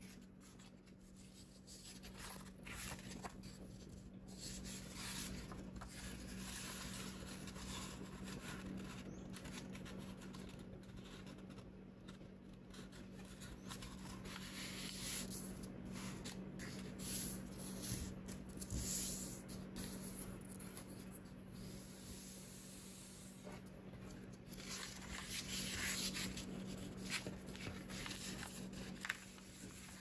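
Sheet of origami paper rustling and sliding under the hands as it is folded and creased, on and off, over a faint steady low hum.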